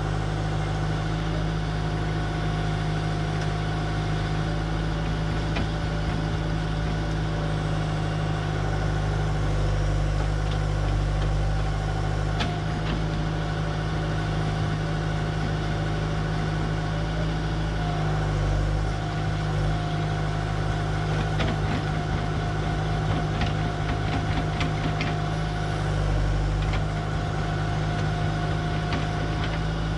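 Diesel engine of a John Deere 120 excavator running steadily at a constant speed, with a few light knocks scattered through the middle and later part.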